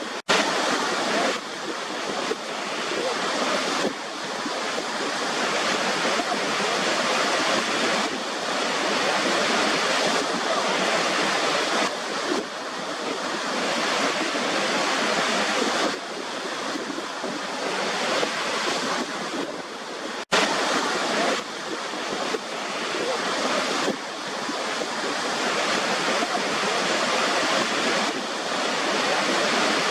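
Waterfall water rushing in a steady, even roar of noise, cutting out for an instant twice.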